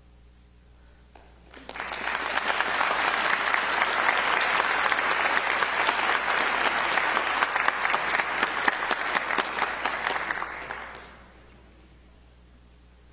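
Audience applause, which starts about two seconds in after a short hush, goes on steadily for about nine seconds and then dies away.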